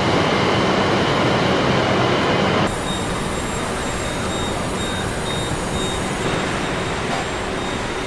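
Steady din of a truck assembly plant: machinery and conveyor noise with a few faint steady tones. It changes abruptly and gets a little quieter about three seconds in.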